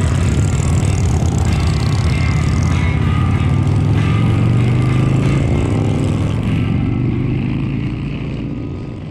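Motorcycle engines running as a small group rides off through an intersection and along the road: a loud, steady, low rumble with wind noise, fading out over the last few seconds.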